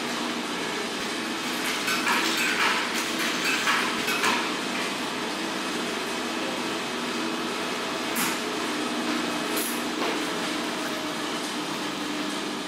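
Coin-laundry machines running with a steady hum. Clunks and clinks come between about two and four seconds in, and once or twice later, as the front-loading washer doors are shut and the machines are worked.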